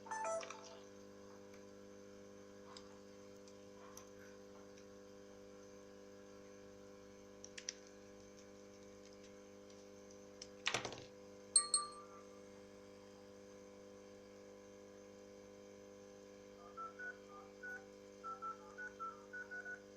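Mobile phone dial-pad key tones, short two-note beeps about two or three a second near the end, as number keys are tapped on a Nokia Lumia 535 with a newly replaced touchscreen. Before them come a few clicks, a louder click about halfway and a single short beep, over a steady low hum.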